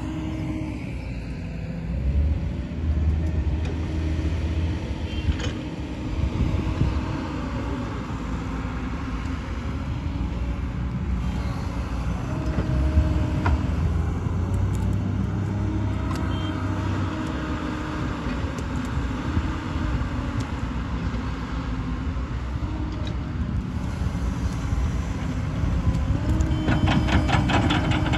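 Heavy diesel engines running as a Hyundai tracked excavator loads mud into a Tata tipper truck. The engine note rises and falls in pitch as the excavator works under hydraulic load. A rapid clatter comes near the end.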